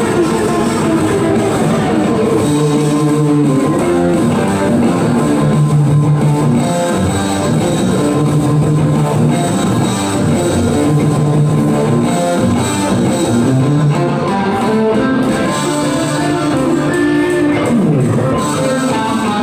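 Electric guitar played through a Kokko mini distortion pedal: a rock riff of held, distorted notes repeating in a steady pattern.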